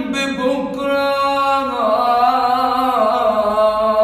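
Man singing an Egyptian mawwal, drawing out the word 'bukra' in long held notes that slide slowly from one pitch to the next.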